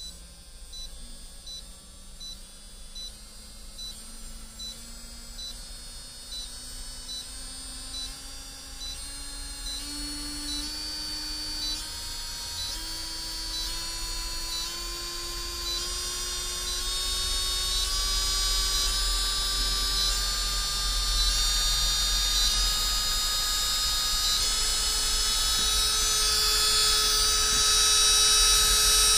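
Electric nail drill's handpiece motor running up as its speed is stepped from about 10,000 to 35,000 rpm: a steady whine that rises slowly in pitch and grows louder throughout.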